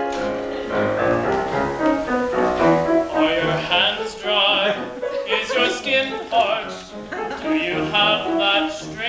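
Live opera singing with piano accompaniment; a high, wavering, vibrato-laden voice comes in about three seconds in.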